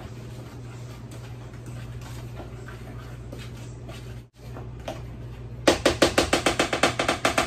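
A utensil stirring seasoned flour in a plastic container, faint scraping over a steady low hum. Near the end the mixing turns into a fast run of sharp clicking strikes, about ten a second, for nearly two seconds.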